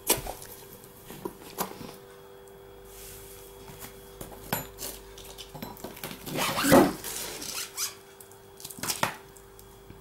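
A Doberman snapping food from a person's fingers and chewing, with several sharp jaw clicks and a louder, noisier sound a little past the middle.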